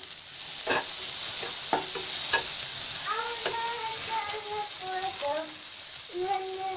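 A metal slotted spatula stirs and scrapes egg and tomato sizzling in a frying pan, with a few sharp clicks of the spatula against the pan. Brief, wavering, voice-like tones come in during the second half.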